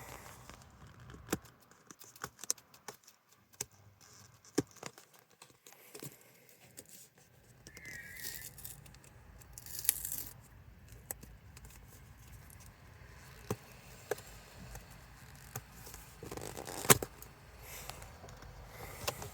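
Cardboard shipping box being opened by hand: packing tape cut and torn, with scattered clicks, scrapes and knocks of cardboard being handled, and one sharper knock near the end.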